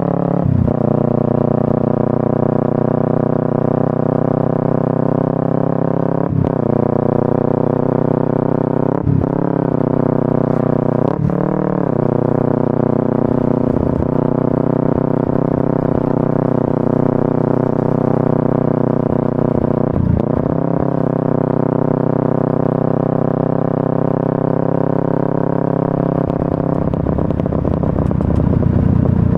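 Honda Supra underbone motorcycle fitted with a Kawasaki Ninja 250 engine, running under way at a fairly steady engine speed. Its pitch dips briefly and recovers about five times. In the last few seconds the sound turns rougher.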